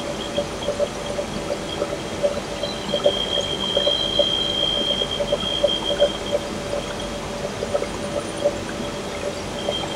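Compressed air hissing and rushing through the Bray Series 6A positioner and pneumatic actuator as the butterfly valve strokes closed and back open in response to the 4–20 mA command signal, with a steady high whistle strongest in the middle and light clicking throughout.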